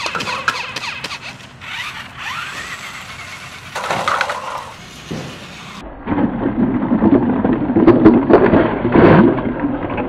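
Toy RC tank running into a stacked pyramid of paper cups. About six seconds in it gets much louder: a dense clatter and scraping as the paper cups topple and tumble over the tank.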